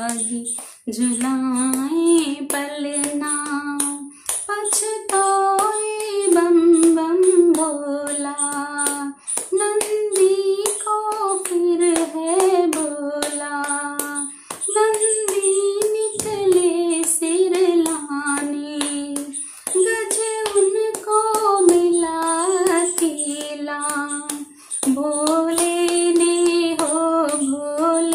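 A woman singing a Hindi devotional bhajan solo, without instruments, in phrases of about five seconds with short breaths between, keeping time with steady hand claps.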